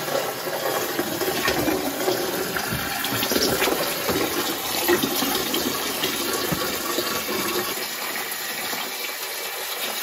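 A thin stream of water running steadily from a small hose into a plastic bucket. This is the rinse that flushes salty brine out of a water-softener filter after regeneration.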